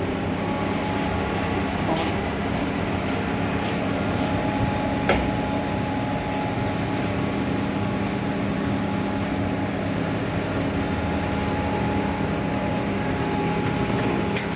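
Laminating machine running, with its rollers, glue pump and fans giving a steady hum with several constant tones, broken by a few sharp clicks, one about five seconds in.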